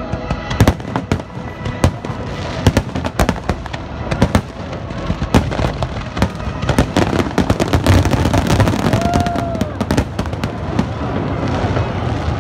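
Fireworks display: aerial shells bursting with sharp bangs in rapid succession over a steady din of further bursts, busiest about eight seconds in.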